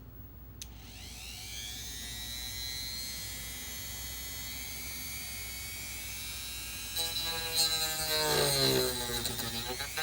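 Small high-speed power tool winding up to a steady high whine, then cutting into the plastic of the rear bumper vent from about seven seconds in, its pitch dipping as the cut loads the motor.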